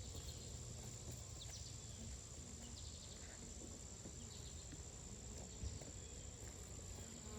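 Faint insect drone of honeybees around an opened hive, with a steady high-pitched whine and a few faint ticks.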